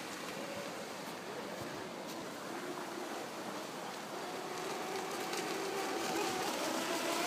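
Radio-controlled jet ski's brushless electric motor and water-jet drive whining across the water, the pitch rising and falling as the throttle changes, plainer in the second half, over a steady rush of water.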